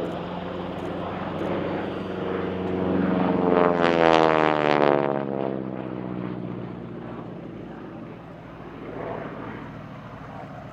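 North American SNJ-3 Texan's Pratt & Whitney R-1340 Wasp radial engine and propeller in an aerobatic display pass. The engine drone swells to its loudest about four seconds in as the plane passes close, its pitch falling, then fades.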